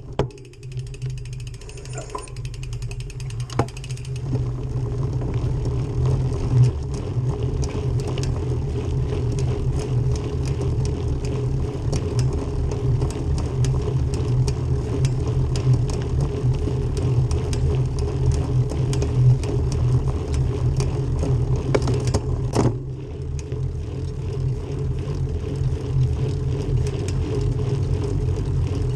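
Bicycle drivetrain with a SRAM NX cassette turning: a rapid fine ticking for the first few seconds, then a steady whirring hum from about four seconds in, with sharp clicks throughout. The clicking is an unwanted noise coming from the cassette.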